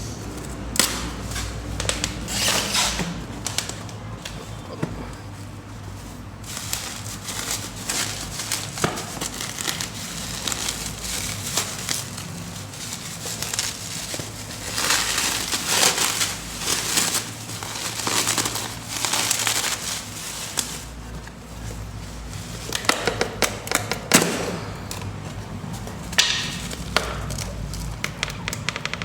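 A parcel being opened and handled by hand: irregular rustling and crinkling of plastic wrapping and tape being torn off, with scattered sharp clicks and knocks.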